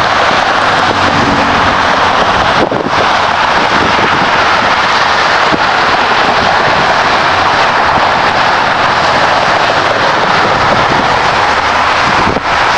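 Steady rush of interstate highway traffic: tyres and engines of passing cars.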